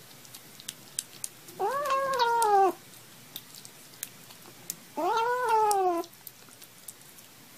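Bengal kitten meowing twice while it eats wet food, each call long (about a second) and rising then falling in pitch, with small wet chewing clicks between the calls.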